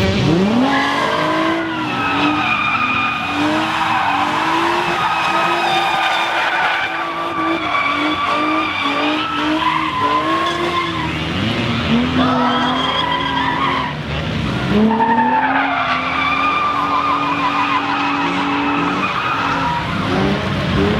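Infiniti G35's 3.5-litre V6 revving hard while the rear tyres squeal and skid, the car sliding on its welded differential with both rear wheels locked together. The revs climb sharply at the start, again about 12 and 15 seconds in, and hold high with small dips in between.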